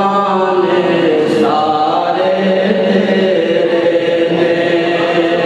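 A man's voice chanting in long, drawn-out melodic notes that glide slowly up and down, with one long held note near the end.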